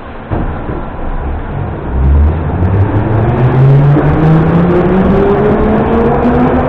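81-717.5M metro train pulling away from a station: the running noise jumps up suddenly just after the start as it sets off, then the traction motors' whine rises steadily in pitch as the train accelerates.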